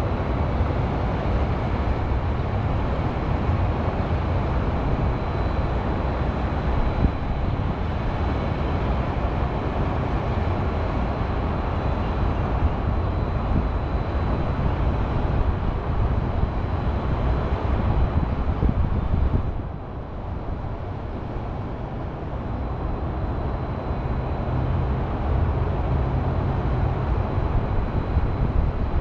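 Steady hum of city highway traffic, which eases for a moment about two-thirds of the way through and then builds back.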